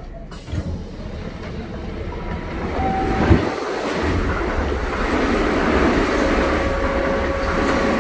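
Keihan 5000 series electric train running slowly past a platform, heard from inside the car: a rumble of wheels and running gear that grows louder, with a sharp clunk about three seconds in and thin steady squeals in the second half.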